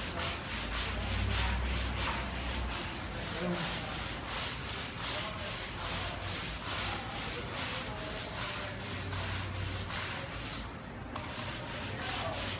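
Long-handled scrub brush scrubbing a painted, textured stucco wall with quick back-and-forth strokes, about two to three a second, working cleaner off a rust stain. A low rumble runs under the first few seconds.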